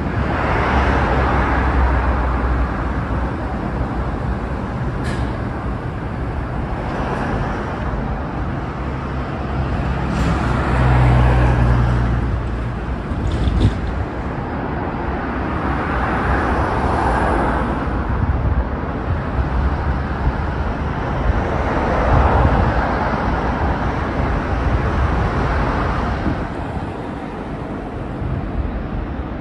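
Street traffic: cars passing one after another on the road, each swelling and fading over a few seconds, with a low steady engine hum during roughly the first half.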